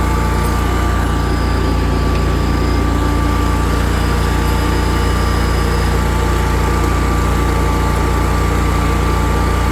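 Exmark Lazer Z zero-turn mower's Kohler Command Pro V-twin engine running steadily, blades not yet engaged.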